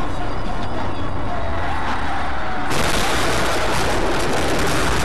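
Vehicle and road noise on a dashcam recording. About three seconds in, a loud rushing noise sets in suddenly and lasts nearly three seconds.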